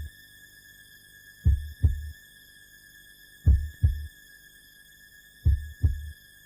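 Slow heartbeat sound effect: a low double thump, lub-dub, every two seconds, three times, over a steady high-pitched tone.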